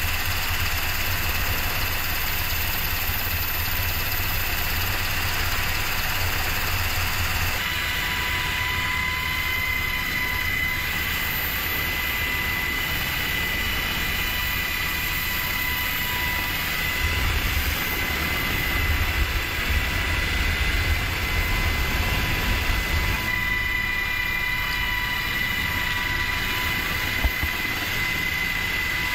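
Helicopter hovering, heard from its open cabin door: a steady rotor and engine noise with a deep rumble underneath. A steady high whine joins about eight seconds in and carries on.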